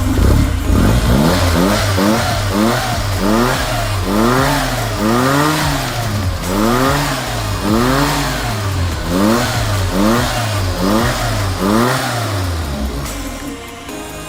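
Zastava 750's small rear-mounted four-cylinder engine being revved up and down about a dozen times, roughly one blip a second, freshly started after the restoration. The revving stops near the end.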